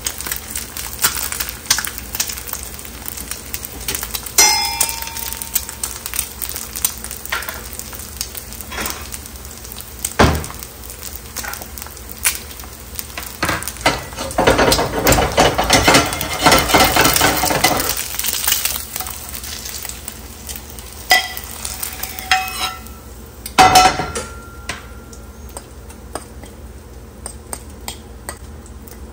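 Fried eggs sizzling in oil in a de Buyer Mineral B carbon steel pan, with a metal fork scraping and tapping against the pan. About halfway through, a few seconds of louder, denser crackle. Near the end, a few short ringing clinks of the fork, with the eggs moved onto a ceramic plate.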